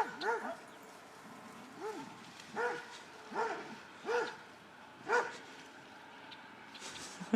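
Dog barking at a bird on a pond, six barks spaced roughly a second apart.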